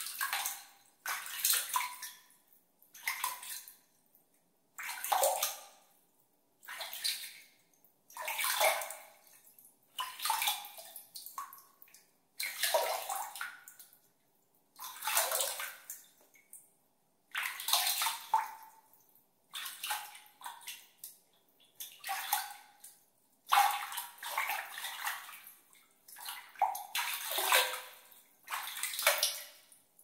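Water in a tub being splashed and sloshed by hand in repeated strokes, one every second or two, each about a second long with short pauses between. Some strokes end in a short pitched bloop.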